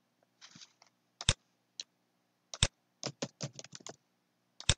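Computer keyboard and mouse clicks: a few sharp single clicks about a second apart, then a quick run of about seven key taps, and a double click near the end.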